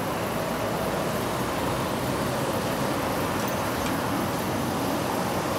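Steady road traffic noise: cars and trucks passing by.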